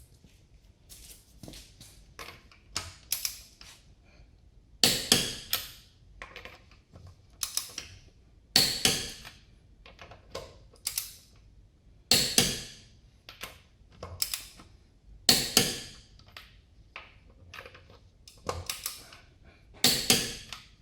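Click-type torque wrench ratcheting in short strokes while tightening car lug nuts toward about 84 ft-lb: clusters of sharp ratchet clicks every second or two, some much louder than others.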